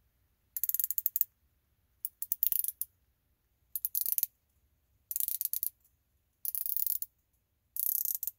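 Invicta 1953 Pro Diver's unidirectional dive bezel being turned by hand, ratcheting in six quick runs of crisp clicks, each about half a second long, every second and a half or so. The action is smooth, with no back play.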